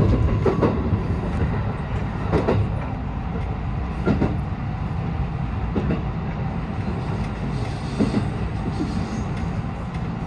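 223-series electric train running on the rails with a steady low rumble, its wheels knocking over rail joints in single thumps every one and a half to two seconds.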